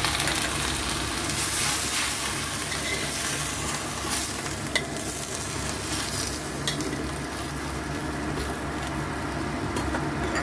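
Chayote shoots sizzling in a steel wok with a little water just added, stirred and tossed with a metal spatula. The sizzle is strongest in the first few seconds and then eases, with a couple of sharp clicks of the spatula against the wok.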